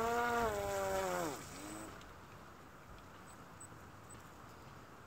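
Homemade RC fan boat's motor and air propeller whining at a steady high pitch, then sliding sharply down in pitch and fading out about a second and a half in. After that only a faint steady hiss remains.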